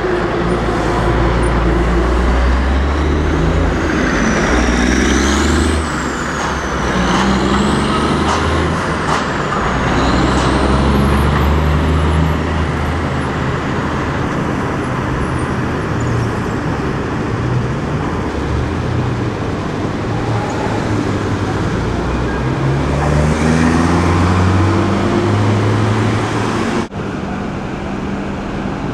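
City street traffic with trucks and cars running and pulling away, and a tram going by. A high whine rises and falls several times through the first ten seconds or so. The sound cuts abruptly near the end.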